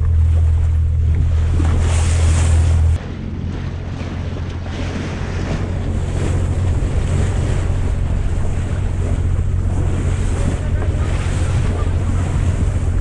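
Motorboat under way: a steady low engine drone mixed with wind buffeting the microphone and water rushing along the hull. About three seconds in, the sound drops abruptly to a somewhat quieter steady drone with wind and water noise.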